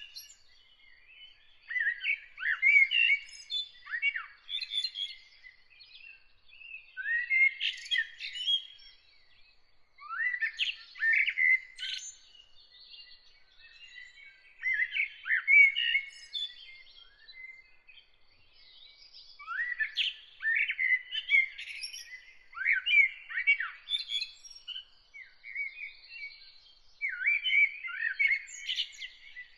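A songbird sings in repeated warbling phrases of a few seconds each, with short pauses between them. A faint, steady high note carries on underneath.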